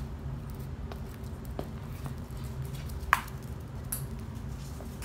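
Light scattered clicks and taps of a Cavalier King Charles spaniel's claws and a person's footsteps on a bare concrete floor, over a steady low hum. One sharper, louder click comes about three seconds in.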